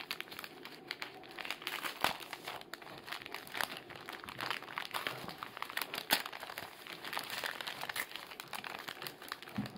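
Plastic mailing bag crinkling and rustling as it is handled, turned over and opened by hand, with many irregular sharp crackles.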